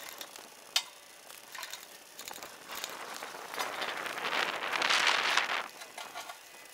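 Footsteps crunching over ground strewn with wood chips and debris, growing louder as the walker passes close by and then fading away. A single sharp click comes about a second in.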